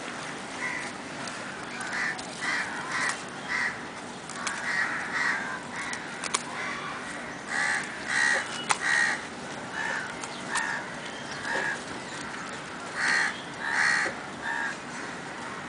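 Crows cawing over and over, short harsh calls about every second, with louder ones about eight seconds in and again near the end. A couple of sharp clicks sound in between.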